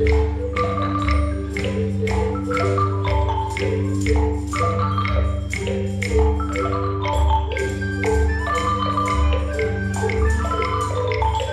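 A group of children playing wooden Orff xylophones with mallets: a steady run of struck notes in a repeating pattern over low bass notes that change about once a second.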